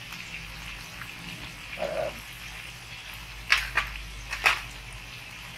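A steel spoon clinking three times against steel spice bowls and the pot as turmeric powder is scooped and added, the clinks close together over about a second in the second half.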